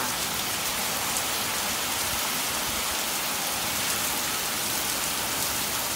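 Heavy rain pouring down steadily, a dense even hiss of drops hitting and splashing on the ground.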